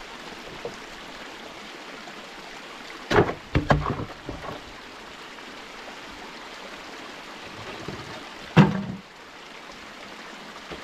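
Small stream running steadily, with a cluster of knocks and clunks about three seconds in and one loud thump about eight and a half seconds in as the wooden waterwheel on its axle rod is shifted against its timber support frame.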